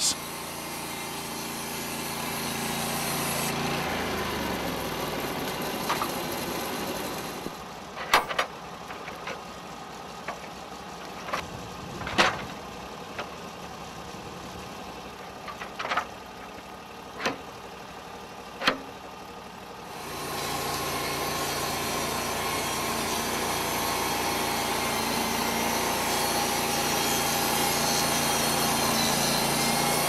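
Portable band sawmill engine running, which fades out and gives way to about twelve seconds of scattered metal knocks and clanks as a log is turned and dogged by hand on the steel bed. The engine then comes back and runs steadily as the mill saws.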